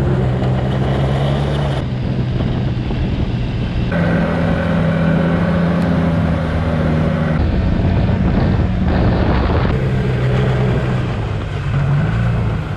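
Snowmobile engine running steadily while riding across a frozen lake, with track and wind noise; the engine note and loudness jump abruptly a few times.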